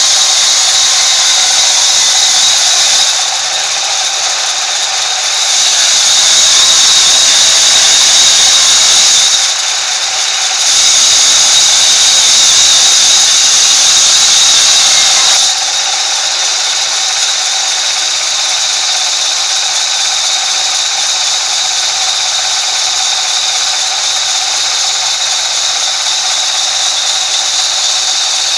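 Sawmill band saw running and cutting through a log, a loud steady whine with a high-pitched hiss. The sound drops twice briefly, then settles a little quieter from about halfway through.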